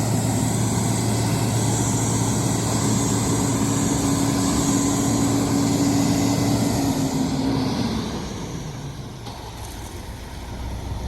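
Concrete mixer truck's engine running steadily with an even hum, dropping away about eight seconds in.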